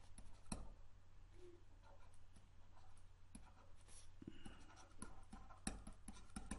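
Faint scratching and small clicks of a stylus writing by hand on a tablet, in short irregular strokes.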